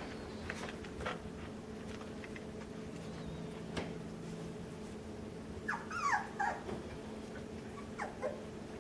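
Miniature American Shepherd puppy whimpering: a quick run of short, high whines falling in pitch about six seconds in, then two more brief whines near the end.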